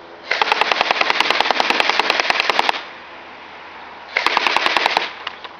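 Pulse R76 electric airsoft rifle firing on full auto, a rapid even rattle of shots. It fires one long burst of about two and a half seconds, then a shorter burst of under a second.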